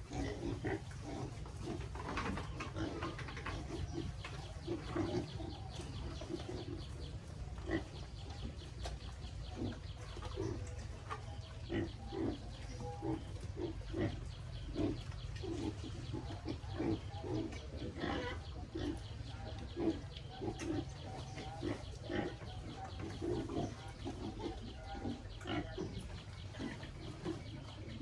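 A group of piglets grunting: a continuous run of short, irregular grunts over a steady low hum.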